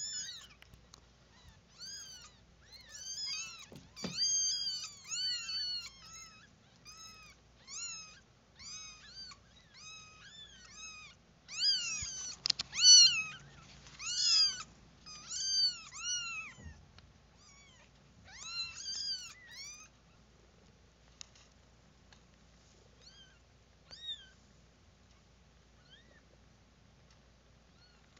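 One-week-old kittens mewing: a run of short, high-pitched cries, one or two a second, loudest about halfway through, then thinning out to a few faint mews.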